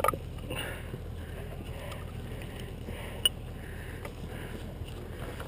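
Footsteps crunching along a dry dirt trail with gear rustling, a soft step every half second or so, and one sharp click about three seconds in.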